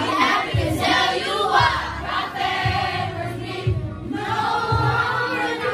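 Children's choir singing together, many young voices in unison, over a steady low beat that thumps about once a second.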